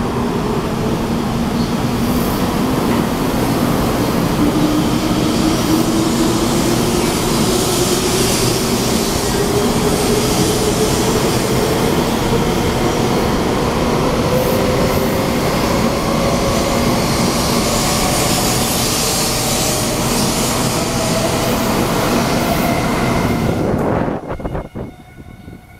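Taiwan High Speed Rail 700T train pulling out of an underground station and accelerating past: a loud, steady rush of wheels and air, with a whine that rises steadily in pitch as the train gathers speed. The noise drops off sharply about 24 seconds in, as the last car clears the platform.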